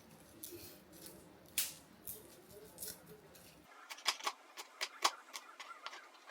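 Knife chopping vegetables on a cutting board: faint scattered scrapes at first, then from about two-thirds of the way in a quick run of sharp knocks, several a second.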